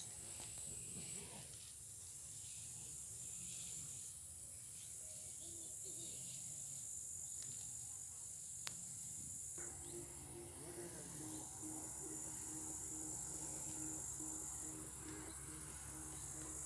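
Insects chirring in the grass: a steady, high-pitched shrill that does not break, over a faint low rumble.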